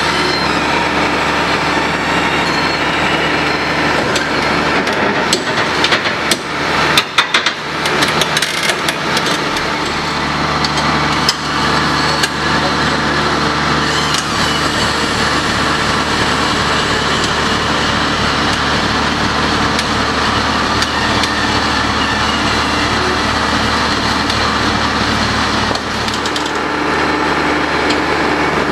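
Diesel engine of a tracked impact crusher running steadily, with a cluster of sharp metallic knocks and clanks about five to nine seconds in and another single knock a little later.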